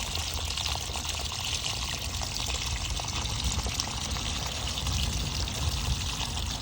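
Water pouring steadily as it drains out of a top-load washing machine, running on without a break.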